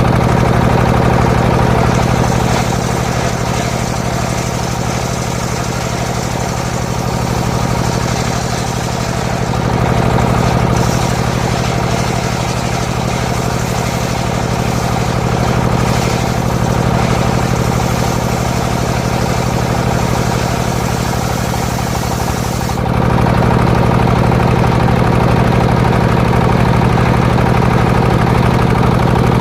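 Engine of a homemade circular sawmill running steadily with a low hum while the blade cuts a coconut trunk, adding a hiss over the engine. Near the end the hiss stops abruptly and the engine gets louder, as the blade comes free of the wood.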